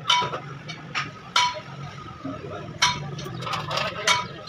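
Light metal-on-metal clinks: four sharp strikes about 1.4 s apart, each with a brief ring, over a steady low hum.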